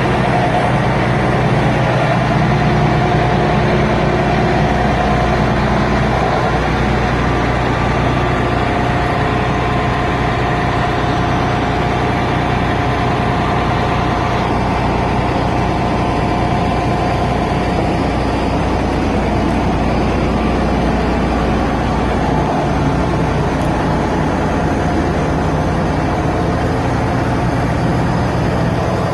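Heavy machinery engine running steadily with a deep, even drone, while a drill rig is being lifted.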